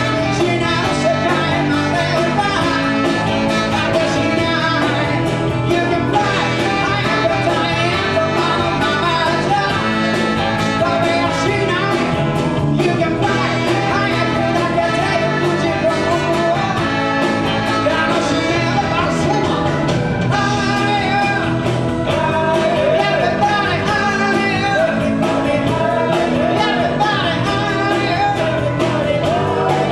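Live rock and roll band playing, with guitar and a singing voice over a steady loud mix.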